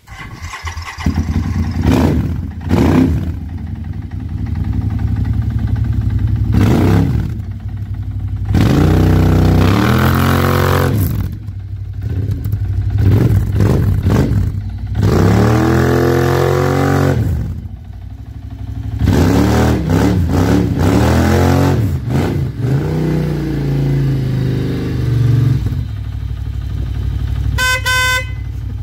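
Aprilia SRV850 maxi-scooter's 839 cc V-twin, fitted with an aftermarket Arrow exhaust, idling and revved over and over, each blip rising and falling in pitch. Near the end comes a brief run of short, pulsed high tones, like a horn beeping.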